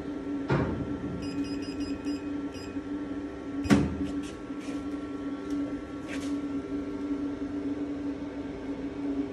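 Picosecond tattoo-removal laser machine running with a steady hum. It gives a string of faint short beeps, then one loud sharp click about four seconds in as it goes from standby to ready, followed by a few lighter clicks.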